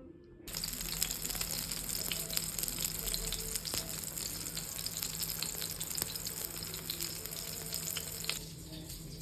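Food shallow-frying in hot oil, a dense sizzle with constant fine crackles and pops. It starts abruptly about half a second in and cuts off near the end.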